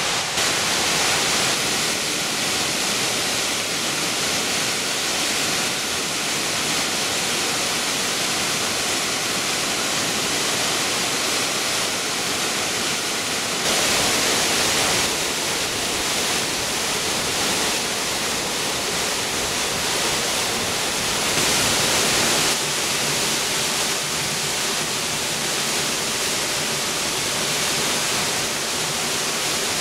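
Ramsey Cascades, a waterfall spilling down stepped rock ledges, rushing steadily. The rush swells for a second or so about halfway through and again about three-quarters of the way through.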